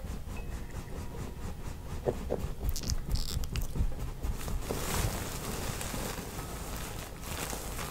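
Hands rubbing and pressing on skin during a neck and face massage: soft friction with small patting clicks. There is a short hissing rub about three seconds in and a longer, fuller rubbing hiss from about five seconds in.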